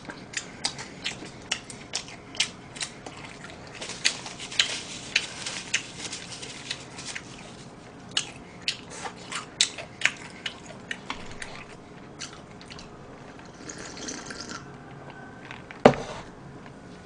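Close-miked mouth sounds of someone eating fried chicken: wet chewing and lip smacks, heard as a quick string of short sharp clicks, with one louder knock near the end.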